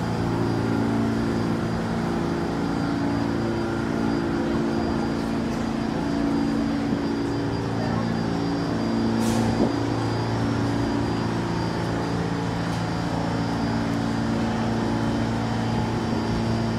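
R46 subway train standing at the platform with its doors open, its onboard equipment giving off a steady low hum made of several fixed tones. A single sharp click sounds about nine seconds in.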